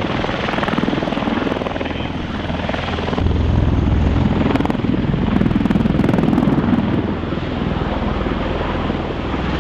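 MV-22 Osprey tiltrotor running in helicopter mode: a rapid rotor chop over a steady engine noise, getting louder about three seconds in and easing off again near the end.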